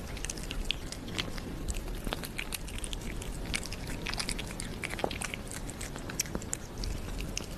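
A cat chewing and nibbling at the claws of its own front paw, close to the microphone: a dense run of small, irregular clicks.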